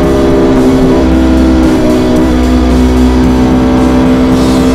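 KTM Duke 200's single-cylinder four-stroke engine through an SC Project SC1-R exhaust, running at fairly steady revs under way. The pitch shifts slightly about a second in and again about two seconds in.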